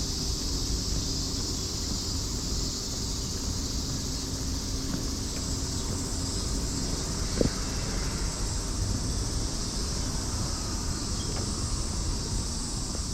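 Cicadas singing in a steady, unbroken high-pitched chorus, over a low rumble of wind on the microphone. A single short click stands out about seven seconds in.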